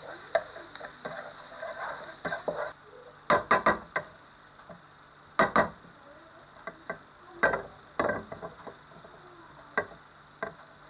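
Chopped garlic sizzling softly in a little oil while a wooden spatula stirs and scrapes it around a non-stick wok. The sizzle drops away about three seconds in, leaving separate scrapes and taps of the spatula on the pan, about eight of them.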